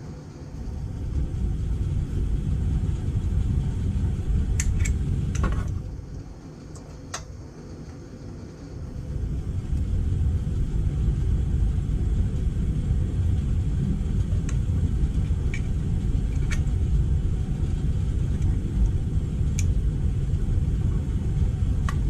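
Steady low rumble that drops away for a few seconds about a quarter of the way in, then returns. Over it come a few light metallic clicks as a compression tester hose is fitted into a spark plug hole.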